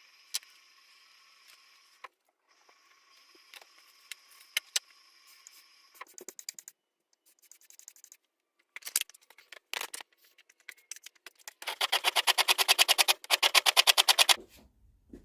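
Wood being worked with a hand tool: scattered clicks and scrapes, then about three seconds of loud, fast, evenly repeated scraping near the end.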